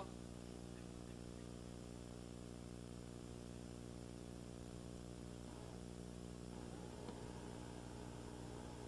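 Low, steady electrical hum with a buzz of evenly spaced overtones and faint hiss: the mains-hum noise floor of an old VHS tape transfer. A faint, uneven sound joins in about six seconds in.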